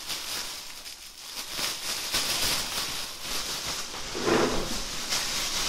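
Thin plastic bag rustling and crinkling as it is handled and opened, with a short hum-like sound about four seconds in.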